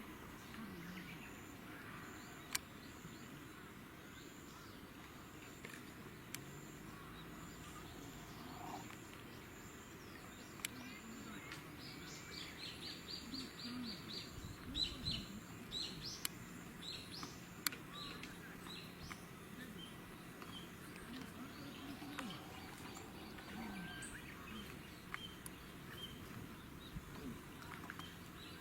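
Birds chirping over a steady faint background hiss, with a run of quick, high repeated chirps around the middle. A few sharp clicks stand out.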